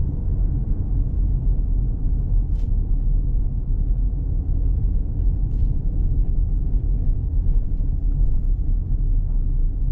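Steady low rumble of a car driving slowly, heard from inside the cabin: engine and road noise with no sudden events.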